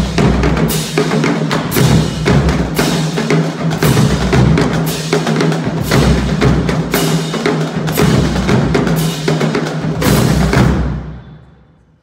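Marching drumline playing loud: snare drums, tenor drums and pitched bass drums under frequent crash-cymbal hits. The playing stops about eleven seconds in and the last hit rings away.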